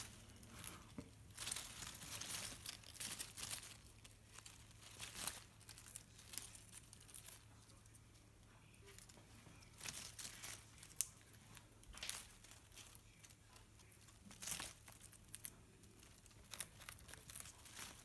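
Faint rustling and crinkling of basil leaves and stems as a budgie clambers about in the plant, in short scattered bursts with quiet gaps between them.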